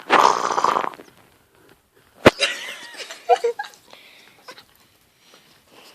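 Pet dog whimpering and making breathy noises, upset and scared, with a sharp click about two seconds in.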